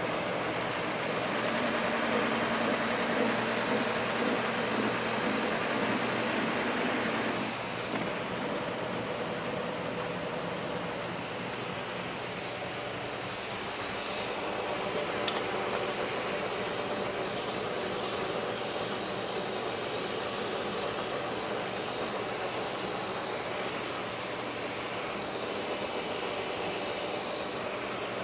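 K&T milling machine running and milling CPVC plastic: a steady hiss from the cut over the hum of the motor and gearing, growing brighter about halfway through.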